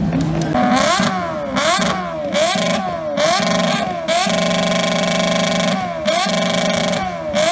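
Motorcycle engine revved hard over and over while standing, the pitch sweeping up and down in quick blips. Near the middle it is held at high revs for about two seconds, then blipped again.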